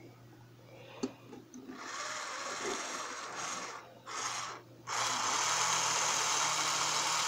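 Small electric motor and gearing of a Piko HO-scale BR 80 model steam locomotive, test-run after the motor was cleaned and reassembled. There is a click about a second in, then two short runs, then a steady whirr from about five seconds in.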